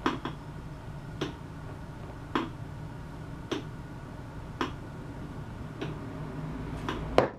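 Homemade wooden preacher curl stand giving a short sharp click about once a second, slightly uneven, as the dumbbell curls load and unload it, with two clicks close together near the end. A steady low hum runs underneath.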